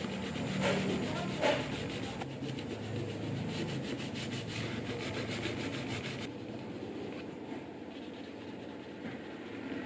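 Sandpaper rubbing back and forth over leather in quick repeated strokes as the flesh side and the cut edge of a wallet piece are sanded by hand. The strokes are louder for the first six seconds or so, then softer.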